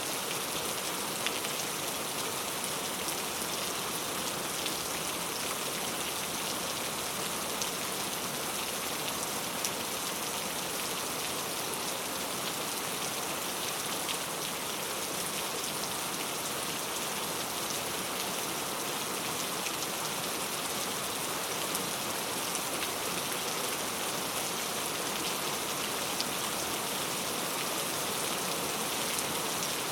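Steady rain falling: a dense, even hiss of drops, with scattered sharper ticks of single drops.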